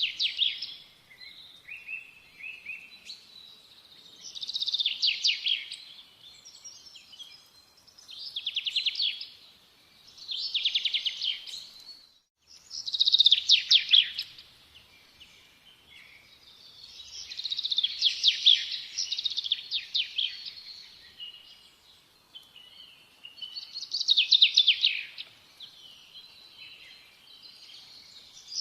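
A small bird singing: short, high, rapidly trilled phrases repeated every few seconds, with quiet gaps between them.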